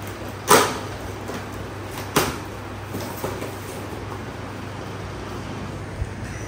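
Cardboard carton opened by hand: two sharp snaps as the taped flaps are pulled open, the first about half a second in and the louder of the two, then light cardboard rustles and taps.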